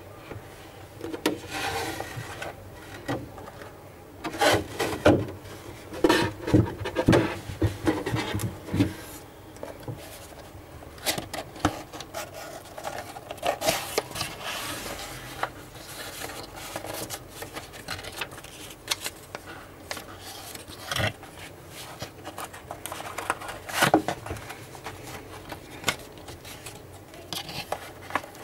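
Hands handling a cardboard gift box and its inserts: rubbing and scraping of cardboard, with a cluster of knocks and taps about four to nine seconds in and another sharp knock near the end.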